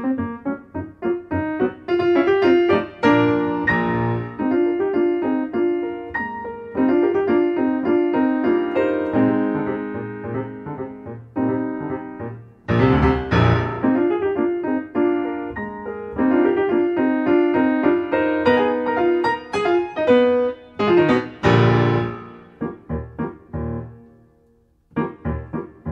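Background piano music: a busy run of notes that thins out and briefly drops away near the end.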